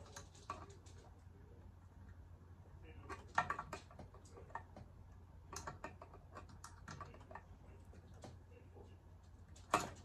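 Scattered small clicks and taps of a hand tool working a small screw and locking nut tight on a coffee grinder's switch plate, in irregular little clusters, the loudest near the end.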